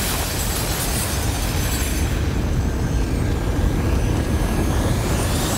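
Sustained explosion sound effect from an animated show: a steady, heavy low rumble with dense noise throughout, without separate blasts.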